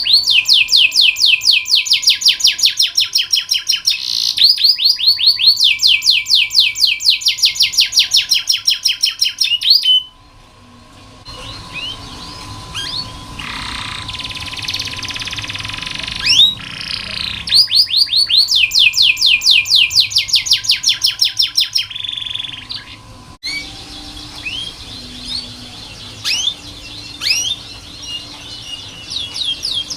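Domestic canary singing: long rolls of fast, evenly repeated high notes, twice, with quieter stretches of scattered single sweeping notes between and after them. A faint steady tone sits under the song for the first two-thirds.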